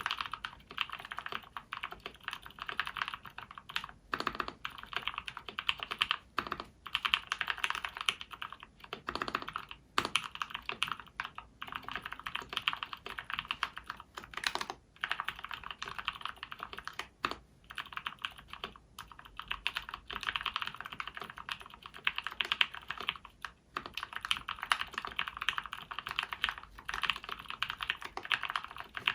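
Fast, continuous typing on a 60% mechanical keyboard with lubed SP-Star purple switches in an acrylic Tofu case: a dense patter of key clicks with a few brief pauses.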